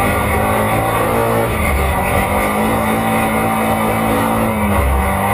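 Honda ATC 350X three-wheeler's engine running steadily under load in sand, heard up close from under the skid plate. Its pitch holds level and shifts slightly about two seconds in and again near the end.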